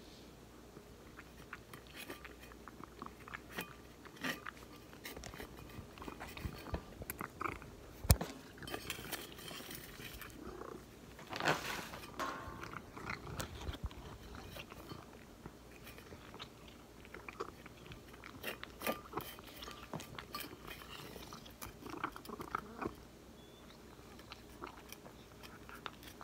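Cat chewing moist cat food from a stainless steel bowl, irregular small clicks and crunches of biting and of the bowl. A single sharp knock about eight seconds in is the loudest sound.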